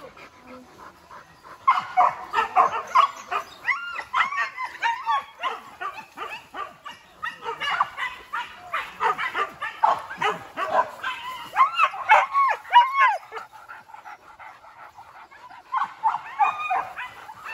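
Several hunting dogs yelping and barking over one another while hunting wild boar. The calls start about two seconds in, die down for a couple of seconds near the end, then pick up again.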